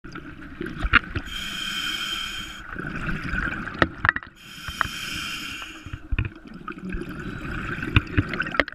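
Scuba diver breathing through a regulator underwater. There are two hissing inhalations, each followed by a gurgling rush of exhaled bubbles, with scattered sharp clicks.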